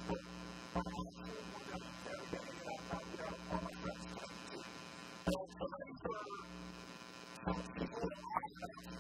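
Steady electrical mains hum with a buzzy stack of overtones, with a muffled voice coming through faintly underneath.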